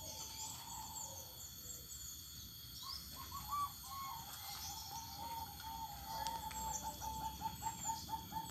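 Caged perkutut (zebra dove) cooing: a soft run of short repeated notes starting about three seconds in and coming faster toward the end, with faint high chirping from other birds throughout.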